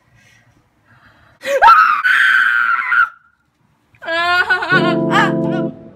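A person screams in fright at a spider for about a second and a half, then gives a second, shorter cry about four seconds in. Right after, music with sustained keyboard chords starts.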